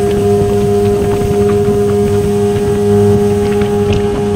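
Suzuki 15 hp tiller outboard motor running at speed under power, pushing a small boat, its note holding a steady, constant pitch.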